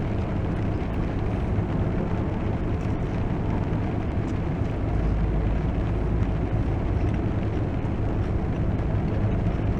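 Rain falling on a parked car's roof and windshield, heard from inside the car as a steady, even patter over a low hum.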